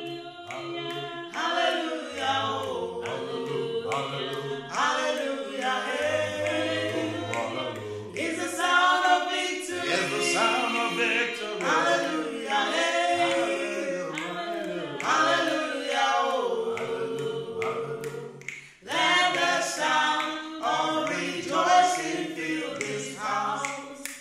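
A choir singing in harmony, several voices holding notes together, with no instruments heard clearly.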